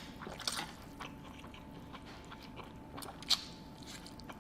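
Close-miked eating sounds: a person chewing and slurping a mouthful of noodles, with scattered wet smacks and clicks, the loudest just after three seconds.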